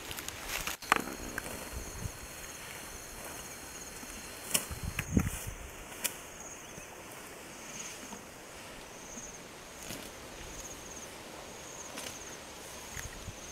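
Elephants feeding in tall grass and shrubs, with a few sharp snaps and rustles of vegetation, the loudest about a second in and around the middle. A faint high chirp repeats about once a second behind them.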